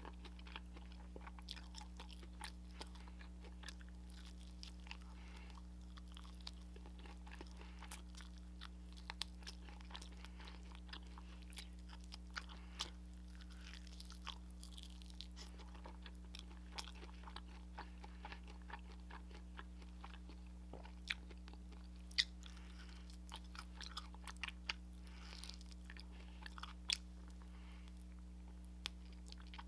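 Close-miked chewing and crunching of soy-glazed fried chicken, with wet mouth clicks and smacks and a few sharper crunches past the middle. A steady low electrical hum runs underneath.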